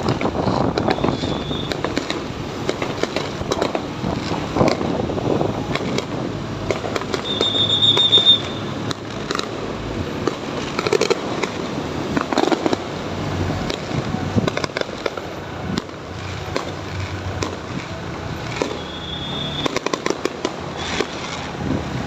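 Fireworks going off again and again, with sharp bangs and crackling, recorded from a moving motorcycle. Wind on the phone's microphone and engine noise run underneath.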